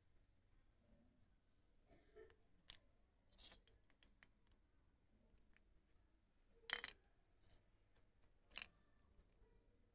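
Broken terracotta clay pot pieces clinking and scraping against a hard floor as they are handled: a handful of short, scattered clicks and scrapes, the loudest about seven seconds in.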